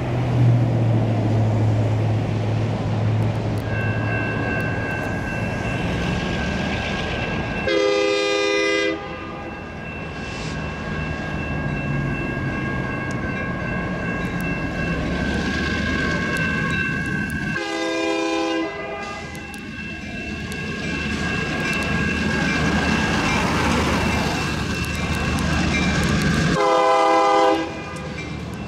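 An approaching train sounds its horn in three blasts about ten seconds apart, each a loud chord of a second or so. Between them the crossing's warning bells ring steadily from about four seconds in.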